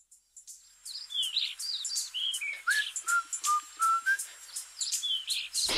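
Birdsong: a bird chirping, a quick run of short whistled notes that rise and fall, several a second, starting about a second in.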